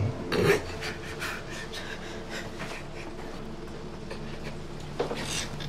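A man gasping and breathing hard in bed, with a sharp gasp about half a second in and another near the end, over a low steady hum.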